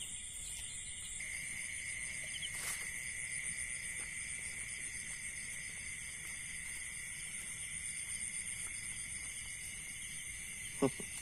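Night-time insect chorus: a steady high-pitched trilling, with a second, lower steady buzz growing louder about a second in. One faint click comes around three seconds in, and a short sharp chirp near the end.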